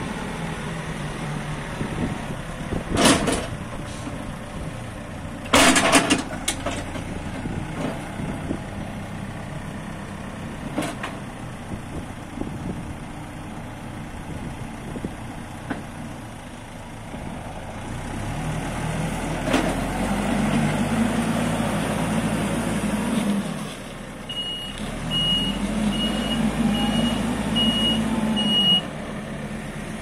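Backhoe loader's diesel engine running, with sharp metallic clanks about three seconds and six seconds in. Later the engine revs up and down twice under load. Near the end the reversing alarm beeps six times as the machine backs up.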